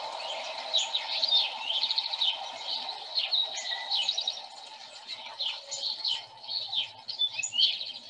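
A chorus of songbirds: a dense stream of overlapping chirps, much of it house sparrows' chip calls, with other birds singing in the mix. A steady background rush sits under the birds and fades about halfway through.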